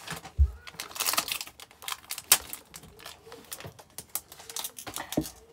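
Pokémon trading cards being handled and flicked through one by one, a quick irregular run of light clicks and taps, with a soft thump about half a second in.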